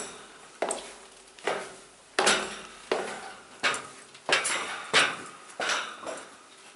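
Footsteps going down hard stone stairs, sharp echoing steps about one every 0.7 seconds, getting quieter near the end.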